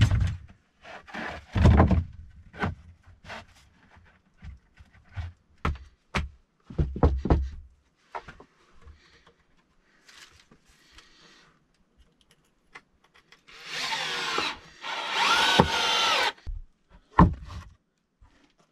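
Wooden planks knocking and thudding as they are handled and laid down. About two-thirds of the way in, a cordless drill whirs in two bursts, driving screws into a board, its motor pitch bending as it works.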